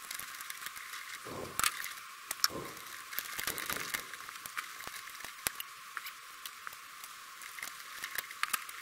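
Small scattered clicks and light scraping of hand wiring work at a switch box: a screwdriver on the switch and bare copper ground wires being twisted together.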